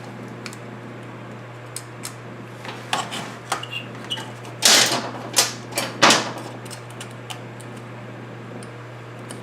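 Hand tools clicking and knocking against a monitor chassis circuit board as a glued-in part is worked loose, with a cluster of louder knocks about five to six seconds in, over a steady low hum.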